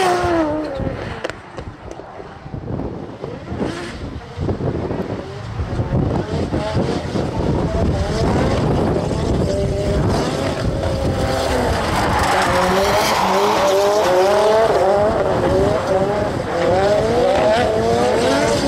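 Nissan S13 drift car engines revving hard, the pitch rising and falling over and over as the throttle is worked through the slides, with tyre squeal. The sound dips for a few seconds soon after the start, then grows louder.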